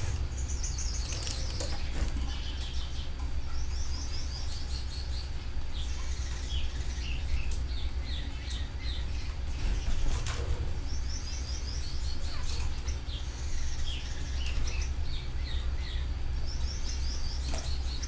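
Domestic canaries singing: high, fast trills, one phrase after another, over a steady low hum, with a few short sharp clicks.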